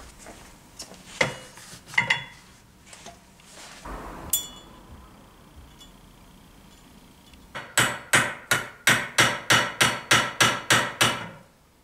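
A quick run of about fifteen light hammer taps, about four a second, driving a crankshaft seal into a Motobecane AV7 moped engine crankcase half. Before the taps come a few scattered knocks of parts being handled on the bench.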